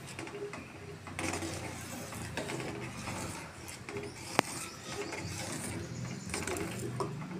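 Steel spoon stirring and scraping around a metal pot of milk with sewai and custard, a continuous rasping scrape against the pot, with one sharp clink about four seconds in.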